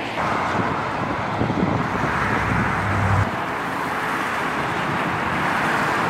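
Steady road-traffic noise from cars driving on the road below. A heavier low rumble swells from about a second and a half in and cuts off suddenly just after three seconds.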